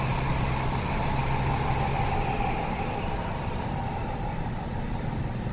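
Steady road and engine noise heard from inside a moving car's cabin, a constant low hum.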